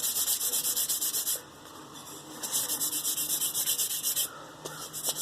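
Cherry wood spoon being hand-sanded with 320-grit sandpaper: quick, even back-and-forth strokes, about six a second. They stop briefly twice, about a second and a half in and again near the end.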